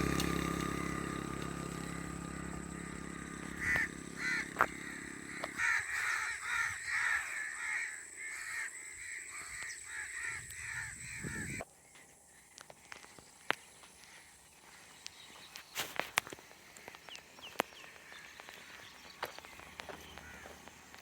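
Crow cawing in a rapid string of harsh calls for several seconds, while a passing motor vehicle's engine hum fades out in the first few seconds. Near the middle the sound cuts off abruptly, leaving only faint scattered ticks.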